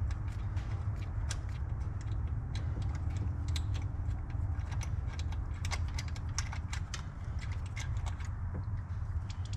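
Ratchet wrench clicking in short, irregular runs as it works a spark plug out of the engine's head, over a steady low hum.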